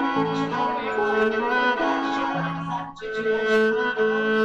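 Music on a bowed string instrument: slow, held notes with a short break about three seconds in.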